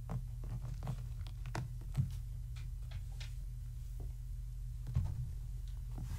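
Kittens scampering and batting small toy balls on a sheet-covered floor: scattered light taps and rustles, with sharper knocks about two and five seconds in, over a steady low hum.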